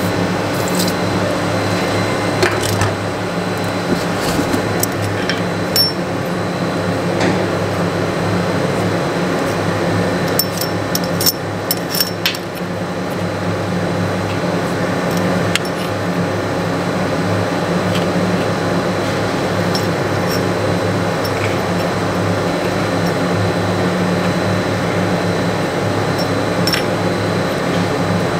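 Light metallic clinks of steel washers being set by hand on a steel plate, scattered, with a cluster about ten to twelve seconds in, over a steady machine hum.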